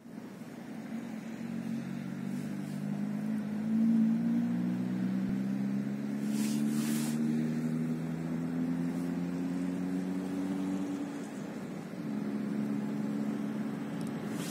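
Diesel engine of a TEM-TMH shunting locomotive running, its pitch slowly rising for about ten seconds, dropping out briefly, then resuming steady. A short hiss about six seconds in.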